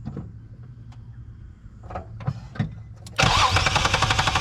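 A few light clicks, then about three seconds in the 2003 Nissan 350Z's newly fitted starter motor kicks in loudly, cranking the 3.5-litre V6 over to start it.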